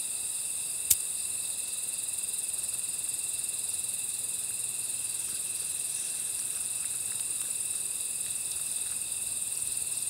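Steady chorus of crickets trilling, several high pitches layered at once, with one sharp click about a second in.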